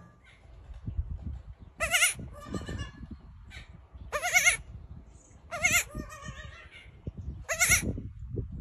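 Baby goat bleating four times, short high-pitched quavering calls spaced about one and a half to two seconds apart, with low rustling between them.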